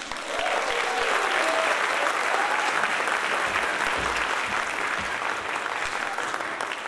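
Audience applauding steadily after a children's chorus song.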